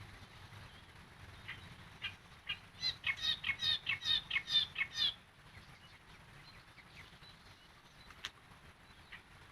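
Yellow-vented bulbul (trucukan) singing: a few single notes lead into a quick, bubbly, warbling phrase of about two seconds around the middle, followed by a few faint chirps.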